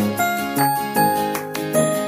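Background music: a light, tinkling melody of bell-like notes over lower held tones, several notes a second.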